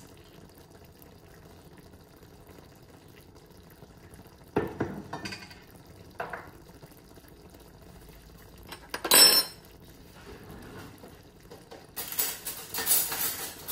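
Glassware and dishes handled on a kitchen counter: a knock about four and a half seconds in, then a loud glass clink about nine seconds in as a small glass bowl is set down. A stretch of clattering near the end.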